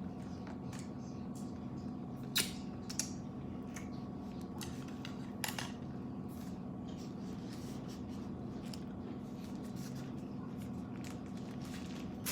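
Scattered light clicks and taps of utensils and food containers being handled, the loudest a little over two seconds, three seconds and five and a half seconds in, over a steady low hum.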